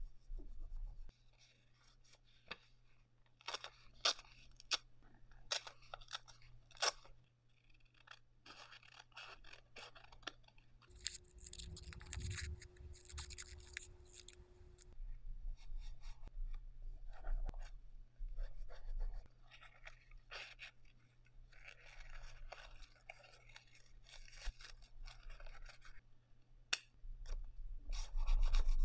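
Quiet paper-crafting sounds: paper pieces handled and pressed onto a journal page with scattered light taps and rustles, and a few seconds of scissors cutting paper about midway through.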